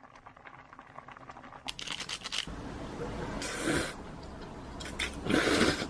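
Plastic ramen seasoning packet crinkling and tearing, with scattered clicks and two short rustling bursts.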